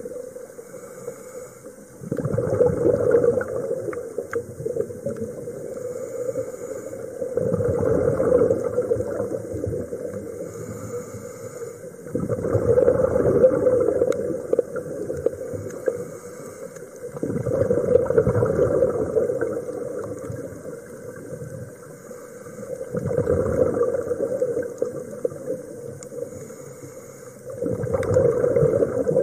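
A scuba diver breathing through a regulator, heard underwater. A burst of exhaled bubbles rumbles about every five seconds, six times, and each burst lasts a couple of seconds, with quieter stretches between.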